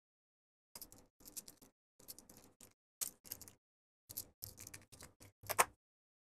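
Plastic mains plug being handled and opened up for wiring: irregular bunches of small clicks, taps and scrapes of its plastic housing and parts, the loudest a little before the end.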